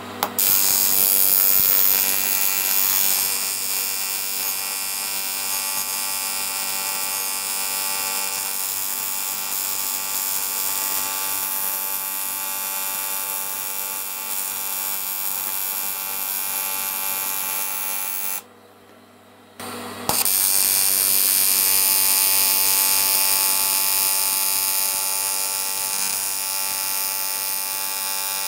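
AC TIG welding arc on aluminium, a steady electrical buzz as weld is built up on a motorcycle crankcase. The arc breaks off for about a second roughly two-thirds of the way through, then strikes again and carries on buzzing.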